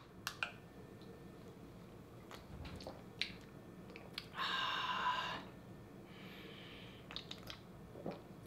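A man drinking beer: a few soft clicks and swallows, then a long breathy exhale about four seconds in and a fainter one just after six seconds.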